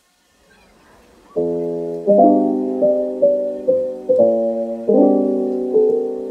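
Background piano music that starts abruptly about a second and a half in, with sustained chords and a slow melody over them. A faint rustle comes just before it.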